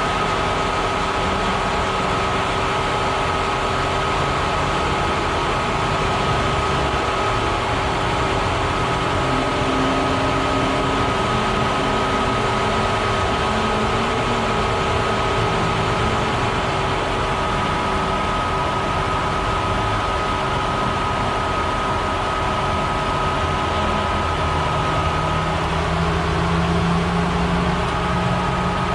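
Cooling fans running with a steady whir and a few constant tones; a lower hum comes in near the end.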